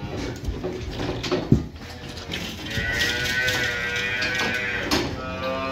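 Calf bawling: one long call starting about two and a half seconds in and lasting some two and a half seconds, then a shorter call near the end, with a knock on the pen about a second and a half in.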